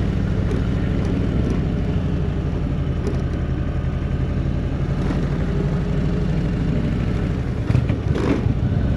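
Indian touring motorcycle's V-twin engine running steadily while riding at low road speed, with a brief whooshing rush about eight seconds in.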